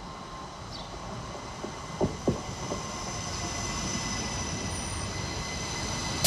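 Class 333 electric multiple unit running into the station, a steady electric whine over a low rumble that slowly grows louder. Two sharp knocks come about two seconds in, and a sharp metallic clank at the very end.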